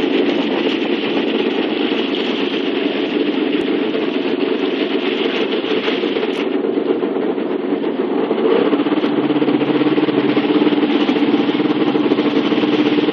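Yamaha personal watercraft's engine running steadily under way, with the rush of water past the hull. The engine gets a little louder about two-thirds of the way through.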